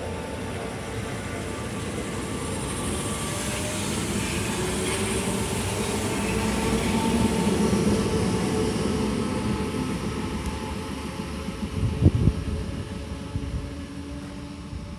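Sanyo Electric Railway 3000 series electric train, unrenovated set 3032F, pulling away from a station. Its motor and gear whine rises slowly in pitch as it accelerates, growing loudest and then fading as the cars pass and leave. A sharp thump comes near the end.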